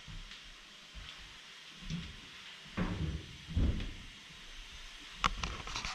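Scattered low thuds of footsteps on a ship's engine-room deck, with a few sharp clicks near the end, over a faint steady hiss.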